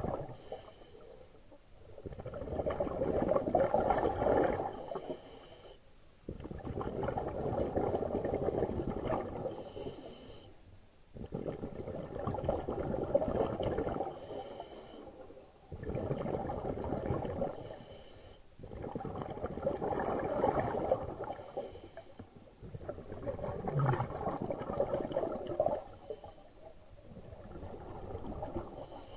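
Scuba diver breathing underwater through a regulator: each exhalation is a few seconds of bubbling gurgle, and about seven breaths come at a steady rhythm with short pauses between them.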